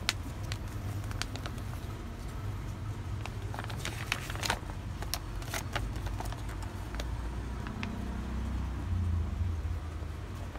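Paper instruction sheet being unfolded and handled, giving scattered crinkles and rustles that are thickest in the middle. A steady low rumble runs underneath.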